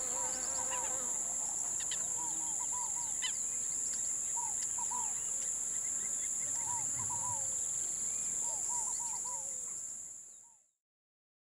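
Outdoor ambience: a steady high-pitched drone of insects, with short chirping calls of small birds in little clusters over it. It all fades out near the end.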